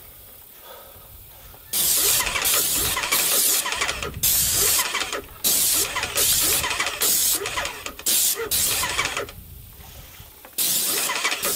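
Cheap airless paint sprayer working: the pump runs while the spray gun hisses in many short on-off bursts as the trigger is pulled and released. It starts about two seconds in, stops for about a second near the end, then starts again.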